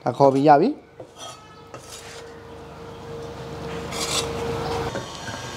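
Steel cleaver blade scraping and sliding across a wooden chopping board, scooping up shredded cabbage. The rasping grows louder and is loudest about four seconds in.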